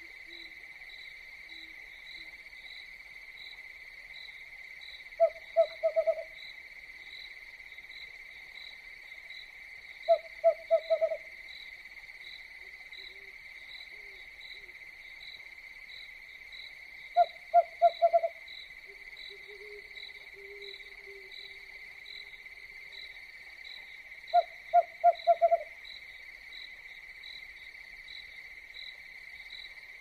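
An owl hooting in short quick bursts of about four notes, a burst every six to seven seconds, over a steady high-pitched chorus of chirring crickets.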